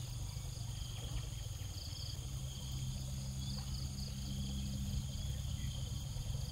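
Field insects such as crickets chirping, with short high trills repeating every second or so over a steady high whine, above a steady low hum.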